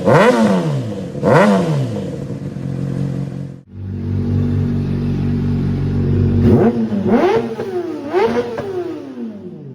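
Honda CBR600RR inline-four engine revved through an aftermarket exhaust: two quick throttle blips that rise and fall, a brief break about three and a half seconds in, then a steady idle, and three more revs near the end, the last falling slowly back toward idle.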